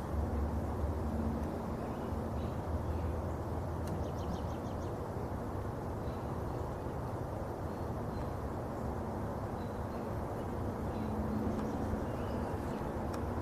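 Honeybees buzzing around a hive, a faint hum that fades after a couple of seconds and returns near the end, over a steady low outdoor rumble.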